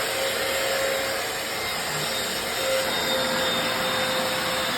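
Hoover FloorMate hard floor cleaner's suction motor running steadily with a high whine, sucking up debris from the floor.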